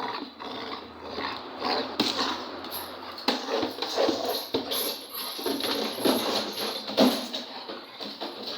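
Sounds of a pet dog at play: a run of short, irregular scuffling noises, with a few sharper knocks, the loudest about seven seconds in.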